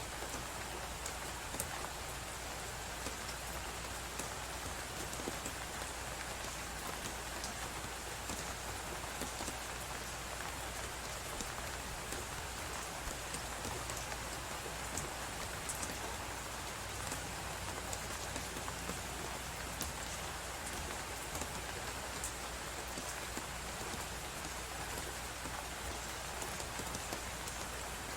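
Wood fire crackling in a fireplace, with scattered small pops over a steady rushing of blizzard wind.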